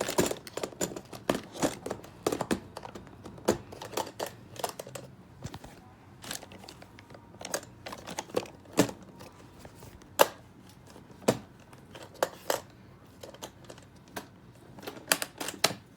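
Irregular clicks, taps and light knocks of makeup items and the aluminum train case's tray being handled and packed, with a quick cluster of clicks near the end.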